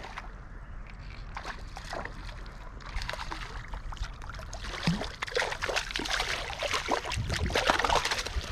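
A hooked rainbow trout splashing and thrashing at the surface while it is played in and netted, over the steady rush of the river. The splashing gets busier and louder in the second half.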